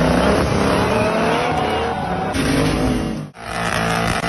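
Offroad buggy engine revving hard, its pitch rising and falling, as the wheels spin in loose dirt. The sound drops out briefly about three seconds in, then another buggy's engine is heard revving under load.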